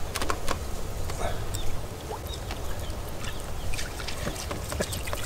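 Water splashing and slapping as a hooked small crucian carp thrashes at the surface while it is pulled in, over a steady low rumble of wind.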